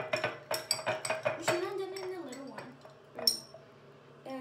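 Metal spoon stirring slime in a drinking glass, clinking against the glass: a fast run of clinks for the first second and a half, then one loud, ringing clink near the end.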